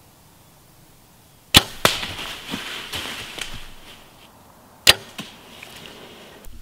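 Compound bow shots: a sharp crack of the string at release, then a second crack a moment later and a couple of seconds of rustling through dry leaves. About three seconds after the first, another sharp crack of a bow release.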